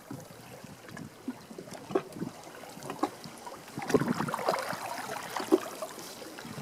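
Water lapping and gurgling against the hull of a sailing canoe as it moves through choppy water, in small irregular splashes that get busier from about four seconds in.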